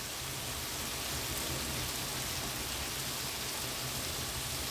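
Yogurt-marinated chicken strips sizzling steadily in oil in a frying pan, nearly cooked through.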